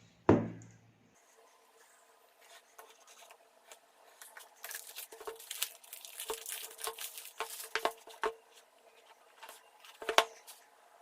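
Sealed smartphone retail box being opened and its packaging handled: a sharp knock just after the start, then a run of rustling, scraping and clicking in the middle and another burst near the end.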